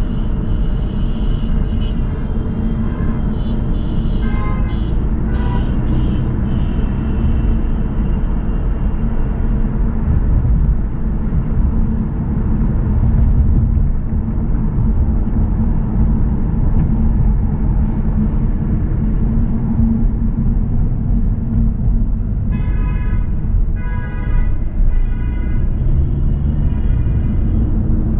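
Steady low rumble of a car driving on city streets: road and engine noise. Near the end comes a run of several short, high pitched tones.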